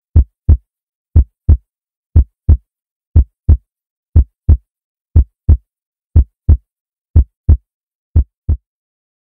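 Heartbeat: a steady lub-dub, nine double thumps at about one beat a second.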